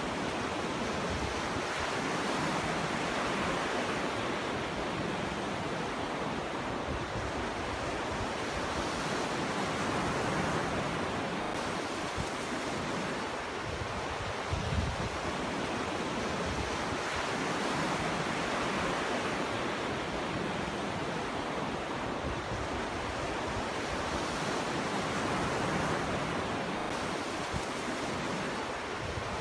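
Ocean waves washing onto a beach: a steady rushing surf that swells and eases every few seconds, with a brief low thud near the middle.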